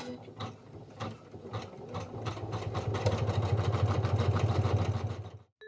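Embroidery machine stitching a design's outline: the needle strokes come sparse and slow at first, then settle into a fast, even rhythm over a low motor hum, and cut off suddenly near the end.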